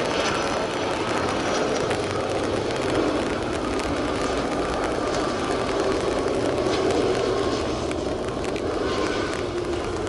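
Airbus A330 twin-engine jet airliner landing: steady jet engine noise with a faint whine in it as the aircraft comes in low and onto a wet runway.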